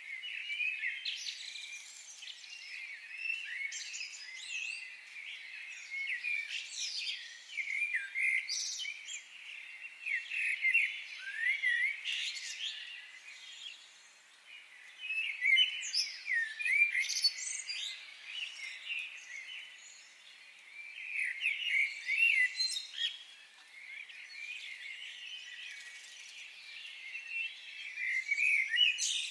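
Several birds chirping and singing at once, a dense chorus of quick, high chirps and trills that swells and fades every few seconds.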